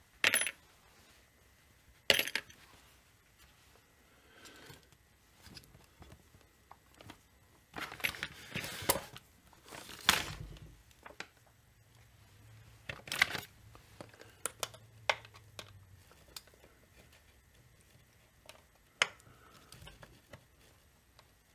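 Scattered clicks and clatters of hand tools and small metal parts against a chainsaw's crankcase and the workbench as the saw is taken apart, with the busiest clattering about eight to ten seconds in.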